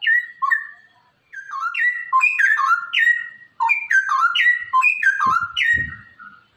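Straw-headed bulbul (cucak rowo) singing its loud, rich warbling song: quick runs of whistled notes that slide downward, with a short pause about a second in. A couple of brief low thumps come near the end.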